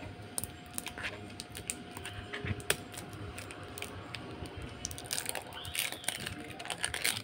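Irregular run of light clicks and clatter, like small hard objects being handled, with one sharper click about two and a half seconds in and a busier patch near the end, over a faint steady hum.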